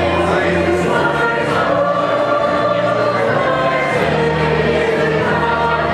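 A small mixed choir singing to acoustic guitars, a bowed violin and a bass guitar.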